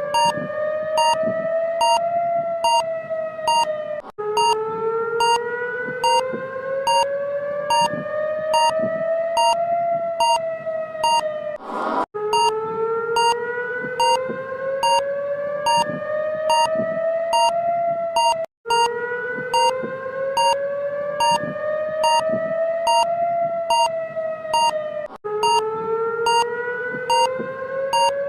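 Emergency alert alarm: a siren tone that climbs slowly in pitch for about six seconds, cuts off and starts again low, four times over, with a steady series of short beeps, about two a second, running over it. A brief rising whoosh sounds at one of the breaks near the middle.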